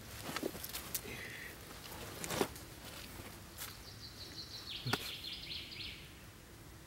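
Dry leaves and twigs crackling and snapping under a dog's paws as it steps and shifts about, with a few sharper snaps standing out. A bird chirps in a quick high series just past the middle.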